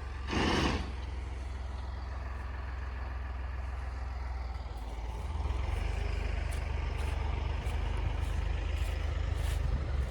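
A vehicle engine running steadily, louder from about halfway through, with a short rushing burst of noise near the start.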